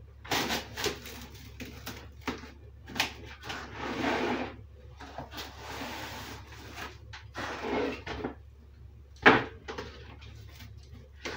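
Plastic cling film pulled off a roll and stretched over a metal sheet pan, in a run of crinkling, rustling bursts, with one sharp knock about nine seconds in.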